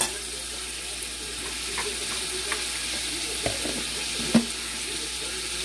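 Food sizzling steadily in a frying pan of gravy, with a few short, sharp knocks of a utensil, the loudest about four and a half seconds in.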